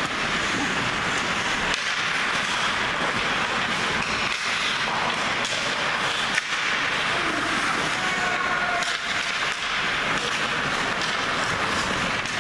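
Ice hockey play: a steady scraping of skates on the ice with clacks of sticks and puck, and a sharp knock about six seconds in.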